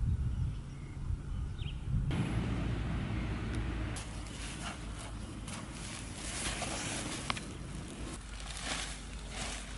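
A low rumble of wind on the microphone. About two seconds in it gives way to the rustling of a fabric backpack and camping gear being handled in dry grass, with scattered sharp clicks.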